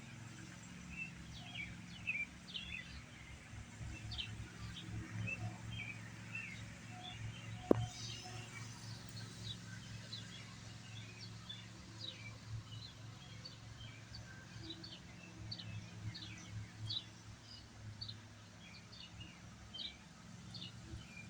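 Small birds chirping on and off, many short calls, over a low steady outdoor rumble; a single sharp click about eight seconds in.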